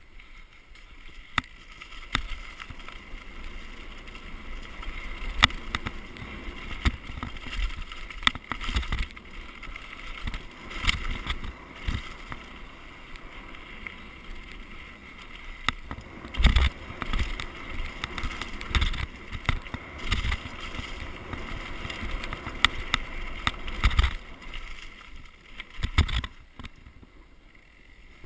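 Downhill mountain bike ridden fast over a leaf-strewn forest trail: a steady rush of wind and tyre noise with frequent sharp knocks and rattles from the bike over bumps. It goes quieter near the end as the bike rolls onto smooth tarmac.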